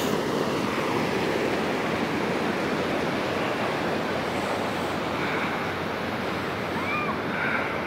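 Water rushing over a stepped concrete spillway: a steady rushing noise that eases a little as it goes on.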